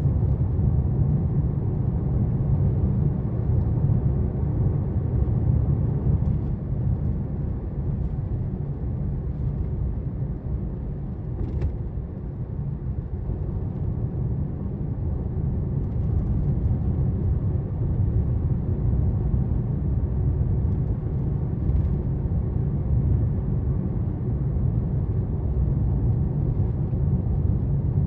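Steady low rumble of a car's tyres and engine heard from inside the cabin while driving, easing slightly about twelve seconds in.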